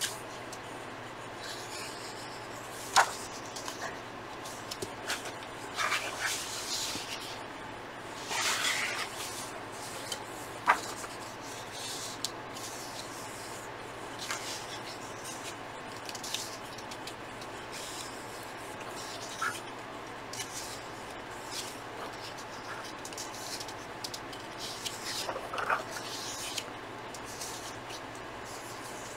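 Paper magazine pages being turned and smoothed flat by hand: several short paper rustles and a few light taps over a faint steady hiss.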